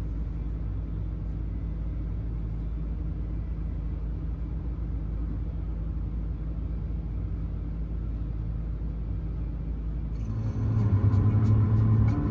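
A motor vehicle's engine running with a steady low rumble. About ten seconds in it grows louder and higher sounds join it.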